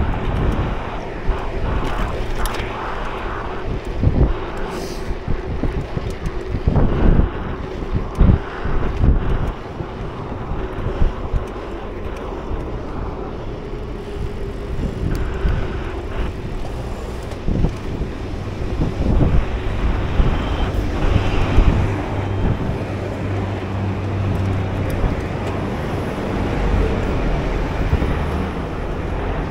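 Wind buffeting the microphone of a camera on a moving bicycle, a gusty low rumble that swells now and then, over road traffic noise.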